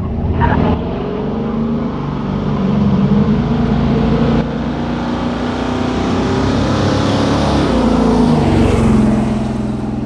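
Cammed small-block Chevy V8 in a square-body C10 pickup running through long-tube headers and turn-down exhaust while driving, loud and lumpy, with the engine note rising twice under moderate throttle.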